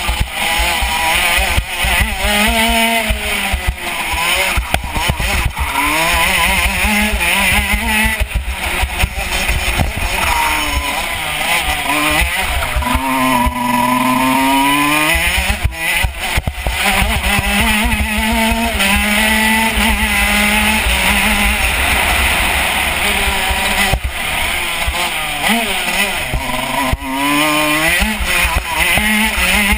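KZ125 shifter kart's 125 cc two-stroke single-cylinder engine running hard on track, heard from on board. Its pitch climbs and drops over and over as it accelerates out of corners and slows into them, with several sudden drops.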